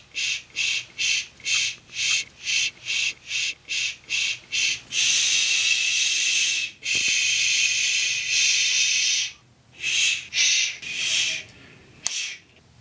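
A man shushing, "shh" over and over: short hushes about two a second for the first few seconds, then two long drawn-out "shhh"s of about two seconds each, then two more short ones. A brief sharp click comes near the end.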